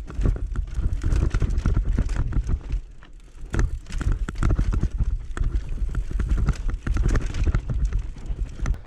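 Mountain bike riding down a rough downhill trail: tyres over dirt and rocks with a constant clatter and rattle of the bike, over a heavy low rumble on the microphone. It eases briefly about three seconds in.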